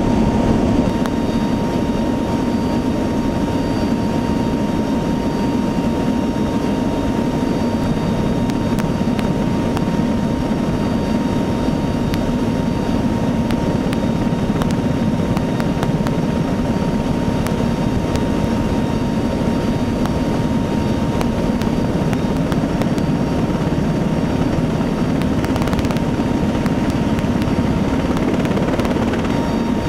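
Steady drone of a KC-130 tanker's turboprop engines and propellers with rushing airflow, heard from inside the aircraft, with a constant thin whine over it.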